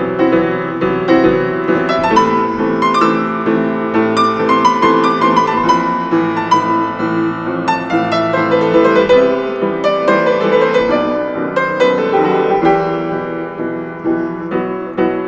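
Instrumental piano passage: a melody of struck notes over sustained chords, moving at a moderate pace.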